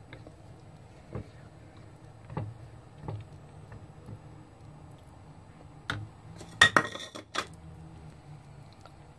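Silicone spatula knocking and scraping against a metal saucepan while thick blended broccoli soup is stirred: scattered knocks, then a loud cluster of ringing clanks about seven seconds in. A low steady hum runs underneath.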